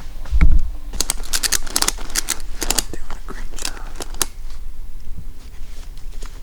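Footsteps crunching through dry leaves and twigs, a quick run of sharp crackles and snaps that stops about four seconds in, after a low bump just under a second in.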